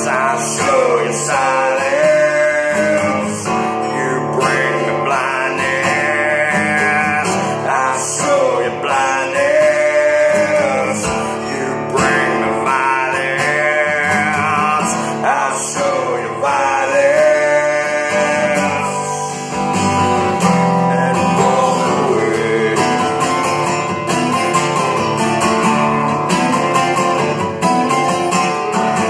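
Two acoustic guitars played together with a man singing over them. The singing stops about two-thirds of the way through and the guitars carry on alone.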